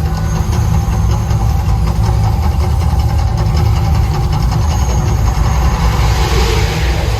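Mirage volcano show's eruption effects: a loud, steady deep rumble.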